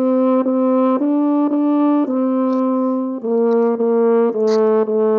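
French horn playing a slow melody, each pitch repeated in short tongued notes about twice a second, with the pitch changing roughly every second.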